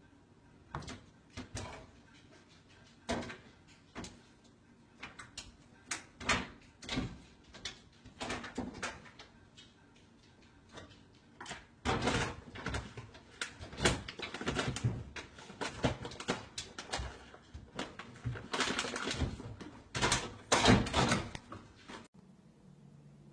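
A cat clambering between an over-the-range microwave and an open wooden kitchen cabinet: irregular knocks, thumps and rattles of the cabinet door and microwave, sparse at first, then thicker and louder in the second half. The sound cuts off suddenly near the end.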